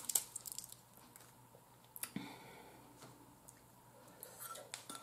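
Boiled blue crab shell cracked and picked apart by hand, with sharp cracks near the start and about two seconds in, then soft chewing of the crab meat.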